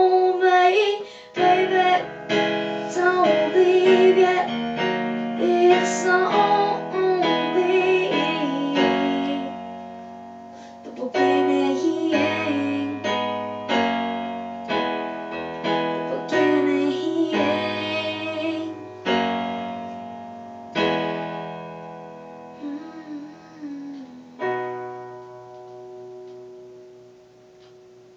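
A song performed on piano sound from an M-Audio keyboard, with a sung vocal. The voice carries through the first part, then the piano plays spaced chords alone as the song winds down, and a last chord near the end is left to ring out.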